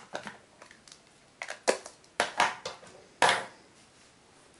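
Sharp clicks and knocks from craft supplies being handled on a wooden tabletop: a plastic ink pad case is moved away and paper layers are shifted. About eight irregular taps, the loudest about three seconds in.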